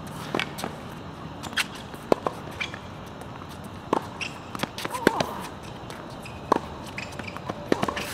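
Tennis rally on a hard court: sharp pops of the racquets striking the ball and the ball bouncing, one every second or two, with footsteps and a brief shoe squeak.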